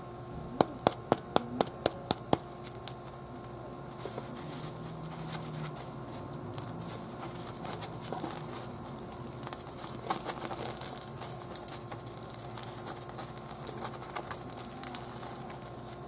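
A freshly baked bread roll tapped sharply about eight times in quick succession, about four taps a second, then torn apart by hand, its thin crust crackling and the soft crumb rustling as it pulls open.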